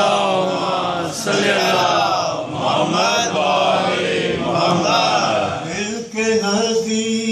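A man's voice chanting an unaccompanied devotional recitation into a microphone, in phrases of about a second and a half; from about six seconds in the notes are held longer and steadier.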